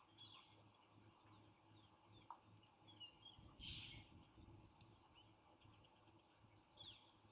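Faint, high-pitched bird chirps, a few short calls scattered through, the loudest a little past halfway, over a very quiet background with a steady low hum.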